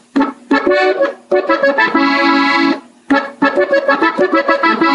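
Gabbanelli button accordion playing a melody phrase at slow practice tempo: a run of short notes, a chord held for most of a second about two seconds in, a brief break near three seconds, then more short notes.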